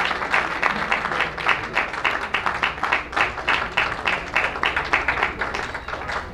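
An audience applauding: many hands clapping in quick, uneven claps.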